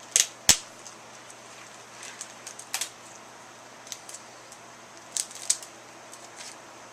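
Packaging being handled while unpacking a parcel: a few sharp, short clicks or snips, coming in three pairs, with light crinkling between them.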